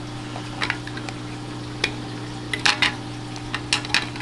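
Scattered light clicks and taps of a small plastic aquarium pump holder being handled and fitted, a few in a row about two and a half seconds in, over a steady low hum.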